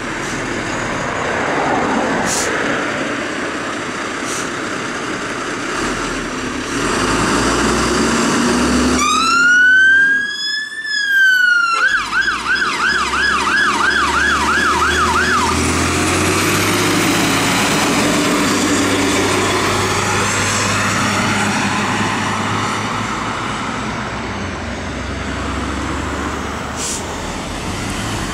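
Fire engine leaving its station: the diesel engine runs with a low rumble, and about nine seconds in its siren sounds one slow wail that rises and falls, then switches to a fast yelp for about three and a half seconds before stopping, leaving the engine and road noise.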